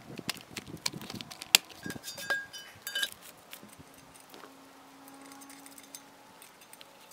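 Sharp metallic clinks and clanks of a steel post's base plate and loose nuts and washers being handled on a footing's anchor bolts, some ringing briefly, for about the first three seconds. After that it goes quiet but for a faint low hum.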